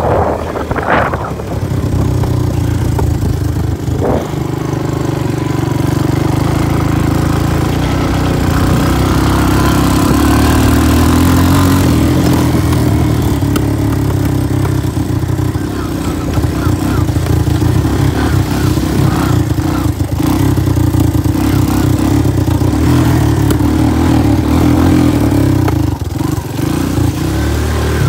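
Honda 250 ATV engine running as the quad rides along a muddy dirt trail, its note rising and falling a little with the throttle.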